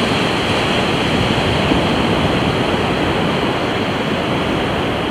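Steady rushing wash of ocean surf breaking on the beach.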